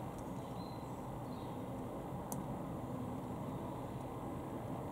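Steady low background rumble with a single sharp computer-mouse click about two seconds in.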